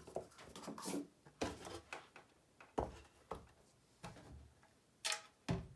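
Paper cups being moved and set down on a table covered in plastic sheeting, then a canvas painting laid on top of them: a series of light knocks and rustles, with two sharper knocks near the end.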